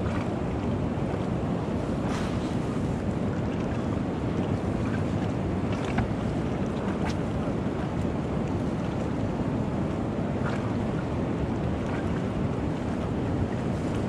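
Steady rushing noise of wind buffeting the microphone over fast-moving river water, with a few faint clicks.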